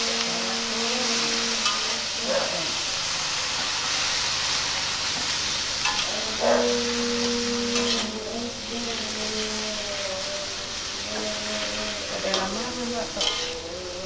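Kangkung (water spinach) stir-frying in hot oil with a steady sizzle. A few knocks, about four, come from the stirring utensil against the pan.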